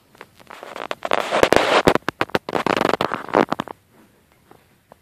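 Christmas wrapping paper crinkling and crackling loudly as a cat thrashes and pounces in it. The crackle starts about half a second in and stops abruptly near the end.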